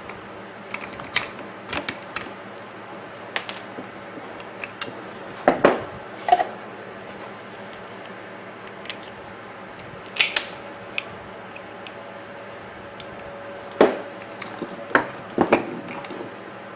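Irregular clicks and knocks of plastic and metal coffee-maker parts being handled and set down during disassembly, over a faint steady hum.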